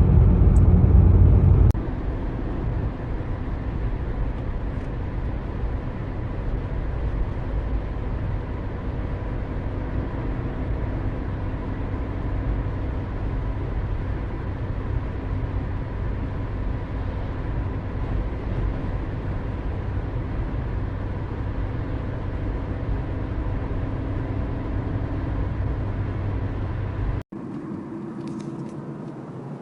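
Road noise inside a moving car's cabin: a steady low rumble of tyres and engine. It is louder for the first couple of seconds, cuts abruptly to a steadier level, and near the end cuts again to a quieter, thinner noise.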